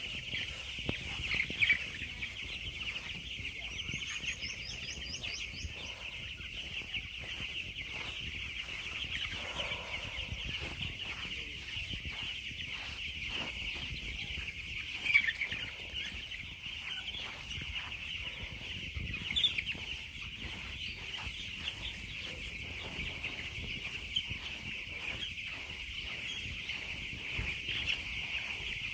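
A large flock of chickens calling all at once in a dense, steady chatter, with a few louder single calls standing out.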